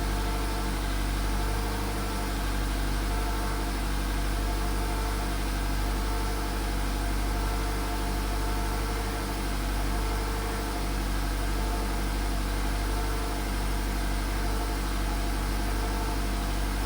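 Volkswagen Polo sedan engine held steadily at about 1500 rpm on light throttle, running evenly without its knock: at this speed the knock goes away.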